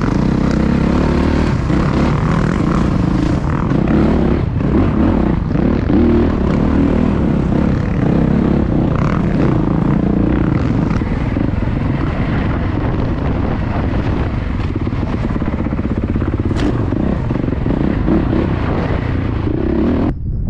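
Dirt bike engine running under throttle while riding a rough, rutted dirt trail, heard from on the bike itself.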